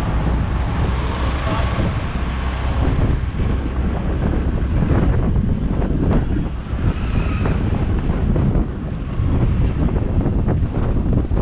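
Steady road noise and low rumble of a moving vehicle in traffic, with wind buffeting the microphone in irregular gusts from about halfway through.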